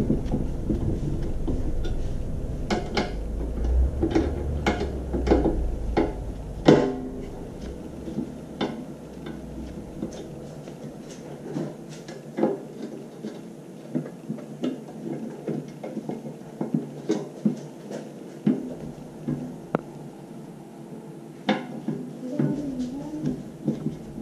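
Irregular clicks and knocks of metal parts being handled and set down on a stainless-steel tank lid as an electric motor and a small bracket are fitted, over a low rumble that fades about ten seconds in.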